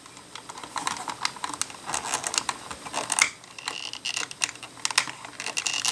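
LEGO plastic pieces clicking and scraping as fingers force a stubborn cupboard door element into its slot in the cabinet. It is a quick, irregular run of small clicks: the door is not seating.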